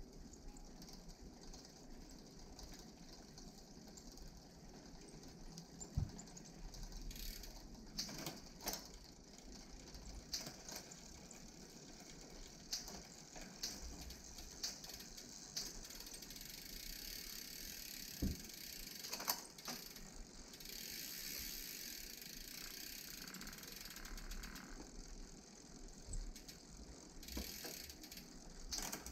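Faint clicking of a bicycle rear hub's freehub pawls as the drivetrain is turned, with a few sharper knocks, while the chain is being lubricated.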